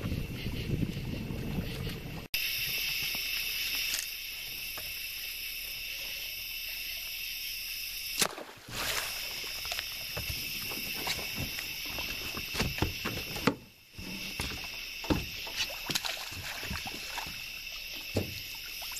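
Steady high-pitched chorus of night insects, broken off abruptly a few times, with scattered knocks and water splashes around a small boat, more frequent near the end as a gar is speared.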